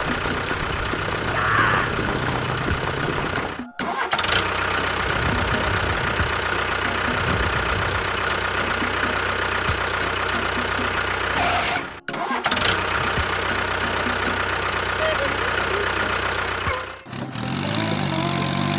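Engine running steadily, cut off abruptly at several edits. Music takes over near the end.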